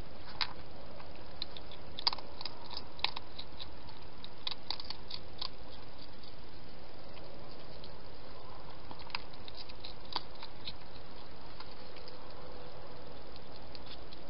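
A wild hedgehog eating from a dish: irregular crunching and smacking clicks that come in short clusters, over a steady background hiss.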